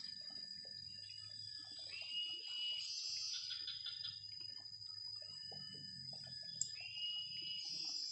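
Wild birds calling over a steady high-pitched insect drone: one bird gives a short upward-sliding whistle twice, about five seconds apart, with shorter whistles and chirps around it.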